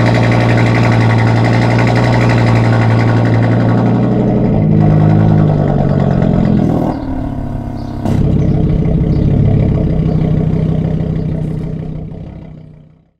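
Audi TT RS 2.5-litre turbocharged five-cylinder engine through an aftermarket EGO-X exhaust, idling steadily. About five seconds in the revs rise briefly, and it then drops back to a steady idle. The sound fades out near the end.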